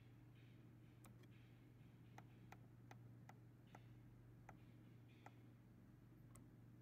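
Faint clicks of the down-arrow key on a Watanabe WPMZ graphical panel meter's front keypad, pressed about nine times at an uneven pace, over a low steady hum.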